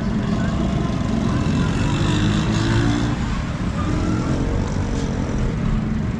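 Hino truck's diesel engine running with a steady low drone.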